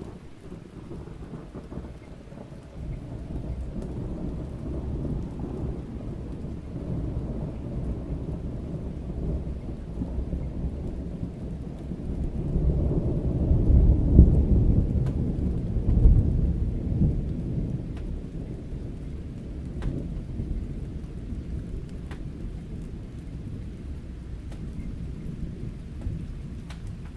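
A long, slow roll of thunder: a low rumble that builds gradually, is loudest about halfway through with a couple of heavier peals, then slowly eases off.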